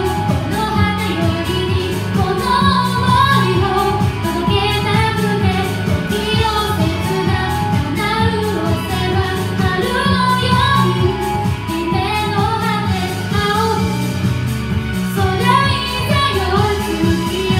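A woman singing a Japanese pop song into a karaoke microphone over its backing track, which has a steady beat.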